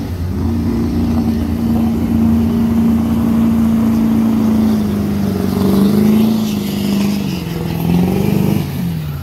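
Pickup truck engine running at high revs under full load as the truck drags a weight-transfer pulling sled. The engine note holds steady, then wavers and drops in pitch over the last couple of seconds as the truck slows under the sled's load.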